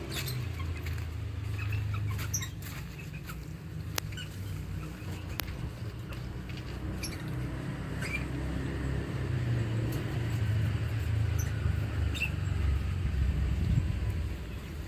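Scattered short, high chirps and clicks from lovebirds in an aviary, over a steady low rumble.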